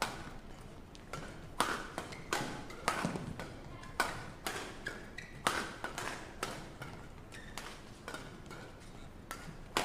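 Badminton rackets striking a shuttlecock again and again in a fast doubles rally, about fifteen sharp hits, some a half-second apart, with brief squeaks of court shoes on the mat between them.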